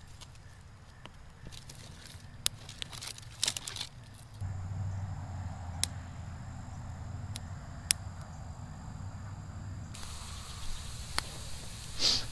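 Small wood campfire of twigs and split kindling burning, with scattered sharp pops and crackles. A steady low rumble sits underneath from about four seconds in.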